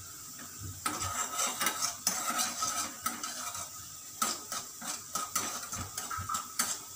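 Metal spoon scraping and clinking against a small metal kadhai as melting butter is stirred. It starts about a second in and goes on as irregular short scrapes and taps.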